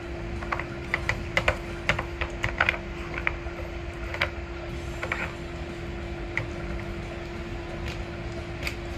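A Shetland sheepdog working its muzzle at a plastic puzzle feeder: irregular light clicks and taps of plastic, quick and frequent for the first three seconds, then only now and then. A faint steady hum runs underneath.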